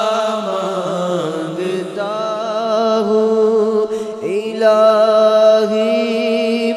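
Male voice singing an unaccompanied naat (Urdu devotional poem), drawing out long, wavering held notes over a steady low drone.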